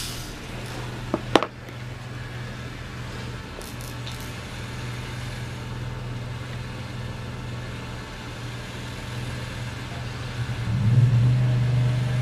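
A steady low mechanical hum, like a motor running, that grows louder about ten seconds in. Two sharp knocks sound a little over a second in.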